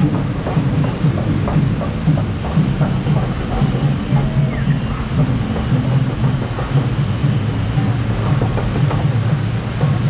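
River-rapids raft being hauled up the lift ramp: the lift conveyor's chain and slatted rollers clatter steadily under the raft over a low mechanical drone.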